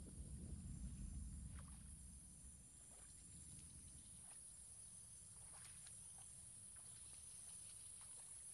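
Faint low sloshing of someone wading through shallow swamp water, fading out after about two seconds. A steady high hiss and scattered small clicks run underneath.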